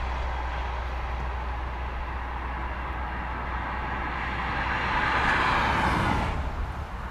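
A passing vehicle's tyre and road noise, swelling to its loudest about five to six seconds in and falling away quickly, over a steady low rumble.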